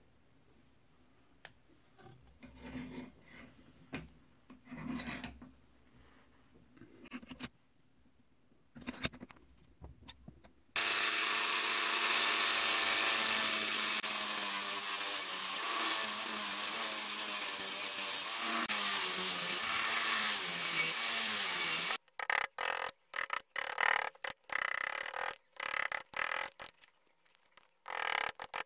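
Handheld rotary tool with a small disc running against a beech-wood handle for about eleven seconds, a steady whine that wavers and sinks in pitch near the end before cutting off suddenly. Before it, faint rubbing and handling of the wooden parts; after it, a string of short scraping cuts of a chisel blade into the wood.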